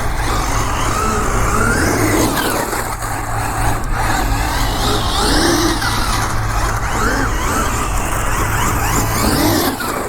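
Losi 6IX 1/6-scale RC car's brushless electric motor whining up and down in pitch as it is accelerated and let off repeatedly, over a steady rush of drivetrain and tyre noise. The tyres get little grip, so the car slides rather than holding its lines.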